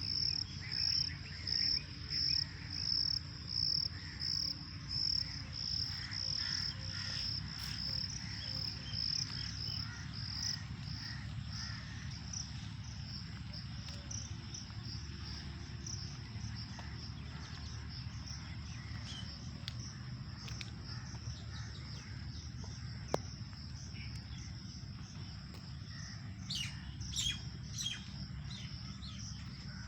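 Steady high-pitched insect chirring, pulsing about twice a second at first, with scattered bird chirps over a low background rumble. A quick run of sharper bird calls comes near the end.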